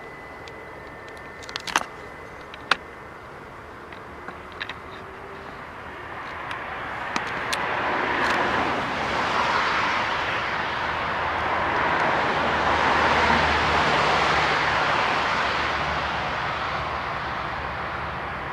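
A jet aircraft passing: its noise swells over several seconds, holds, then slowly fades. Two sharp clicks come about two seconds in, before it builds.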